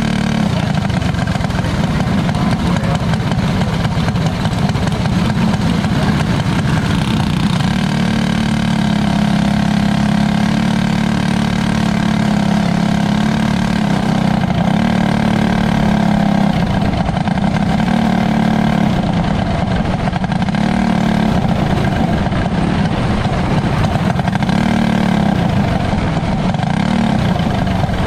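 Engine of a winged micro sprint car running steadily, heard from on board, with only small rises and falls in pitch.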